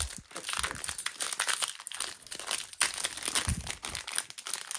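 Foil trading-card booster pack wrapper crinkling as it is pulled open by hand.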